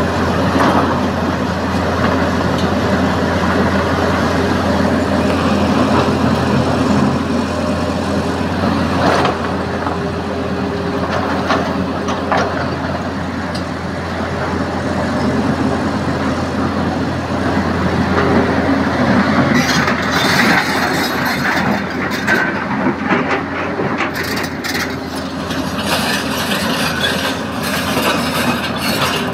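The diesel engines of a Tata Hitachi Zaxis 220LC excavator and a laden tipper truck run with a steady low drone. Scattered knocks and clatter of rock and steel sound over it, coming thicker in the last third.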